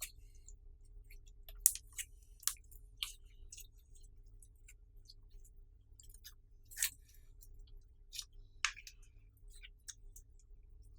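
Clear slime being kneaded and pressed by hand, giving off irregular sticky pops and clicks of varying loudness, a few of them sharper and louder than the rest.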